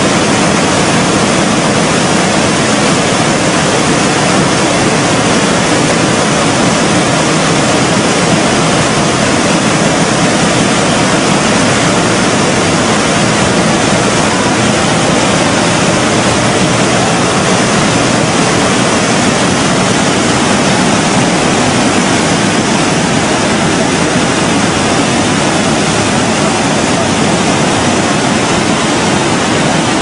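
Floodwater of a swollen river rushing, a loud, steady, unbroken noise.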